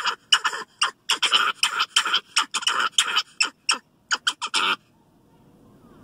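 Capuchin monkey yelling a rapid series of short, sharp alarm calls, about four a second, which stop abruptly near the end: warning calls at cows that frighten him.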